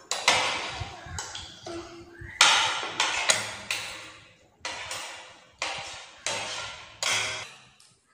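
Metal forks and spoons clinking and scraping on ceramic plates as noodles are eaten: a dozen or so irregular sharp hits, each fading away quickly.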